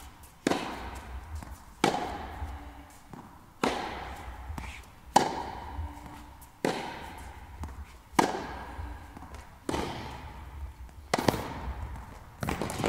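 Tennis ball struck back and forth with rackets in a long rally, one sharp hit about every one and a half seconds. Each hit echoes on in a large indoor tennis hall.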